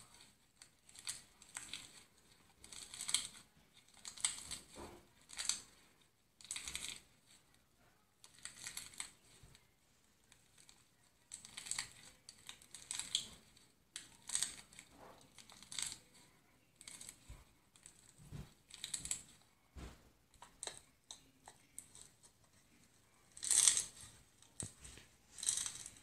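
Iceberg slime crackling and crunching as fingers squeeze and press it, its dried crust breaking up. The crisp crackles come in irregular bursts about every second, the loudest a couple of seconds before the end.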